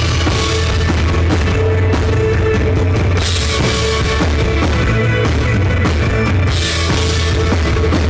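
Live rock band playing loud and steady: drum kit, bass and guitar, with a heavy low end.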